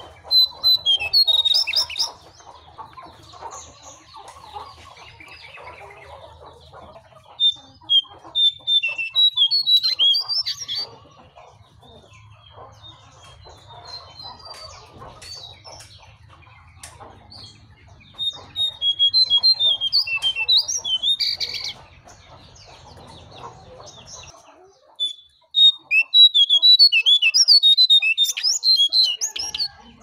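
A caged jongkangan songbird singing in four bouts of rapid, high chirping twitter, each a few seconds long, with short pauses between them.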